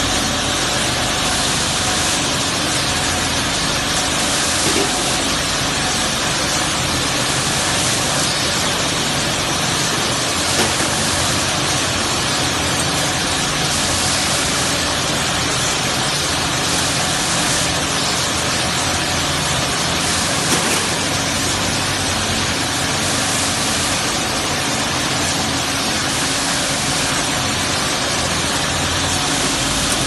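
Door hinge polishing machine running steadily, its polishing wheels working on steel hinges with a loud, even rushing noise and a faint machine hum, with a couple of small knocks.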